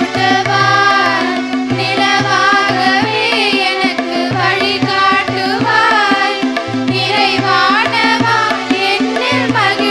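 Girls' choir singing a Carnatic-style song together, in long bending phrases over a steady held drone and a lower line of sustained accompanying notes.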